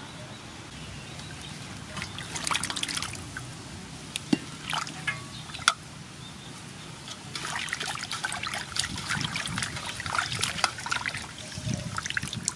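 Hands washing whole cuttlefish in a metal basin of water: splashing and sloshing in bursts, the longest over the second half, with water trickling and dripping as the cuttlefish are lifted out near the end. A couple of sharp knocks stand out about four and six seconds in.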